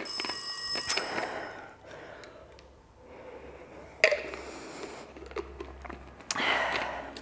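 Electronic interval-timer beeping: a high, quickly repeating chime for about a second as the rest period begins. Then quieter handling noise, with a sharp click about four seconds in.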